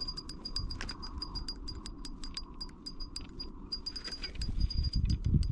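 Spinning reel clicking rapidly and unevenly, light metallic ticks, while a large sturgeon is played on light walleye tackle. A low rumble rises near the end.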